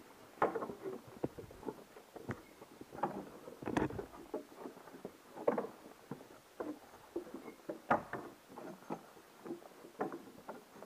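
Irregular hollow knocks and scuffs of hiking boots and hands on the rungs and rails of a wooden trail ladder as a backpacker climbs it, about one sharper knock every second or two.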